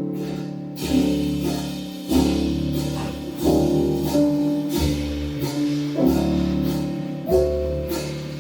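Live jazz band playing a slow ballad: sustained chords from guitar and piano over bass and drums, a new chord struck about every second and a quarter with a bright attack at each change.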